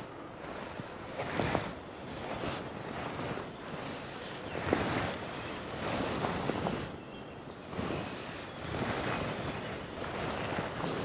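Fast, high river water rushing steadily, with wind gusting on the microphone in irregular swells.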